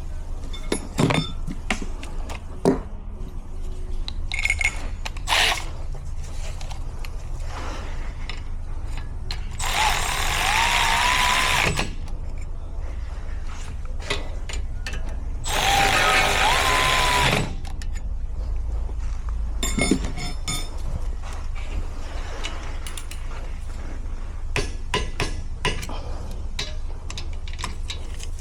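Hand-tool work on a vehicle's rear brake: scattered metal clicks, knocks and ratcheting. Near the middle come two loud hissing bursts of about two seconds each, a few seconds apart, with a faint wavering whistle in them.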